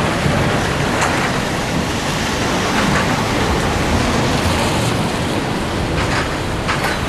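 Scania V8 truck on the move: a steady low engine drone under a loud, even rush of road and wind noise.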